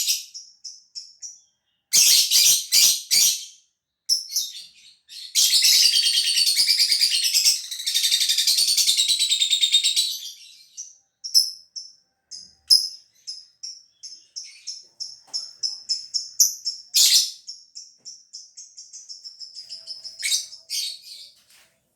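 Lovebird singing: rapid, high-pitched chirps, with a long unbroken chattering trill (the 'ngekek') from about five to ten seconds in, then scattered sharp chirps.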